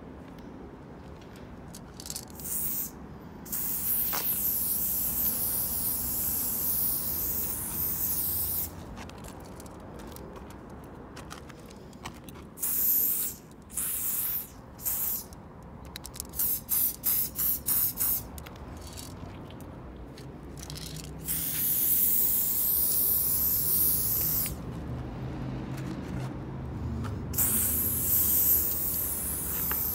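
Aerosol spray-paint can hissing in bursts as paint lines go onto a wall: a few short puffs, long sprays of a few seconds each, and a quick run of about six puffs in a row near the middle.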